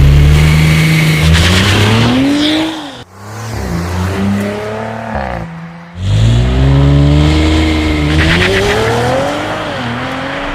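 Audi RS5 Sportback's 2.9-litre twin-turbo V6 revving and accelerating, its pitch climbing in several runs. The sound breaks off abruptly about three seconds in and again about six seconds in.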